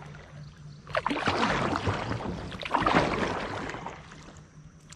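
Kayak paddle dipping and splashing in river water, two strokes about two seconds apart, with dripping between them.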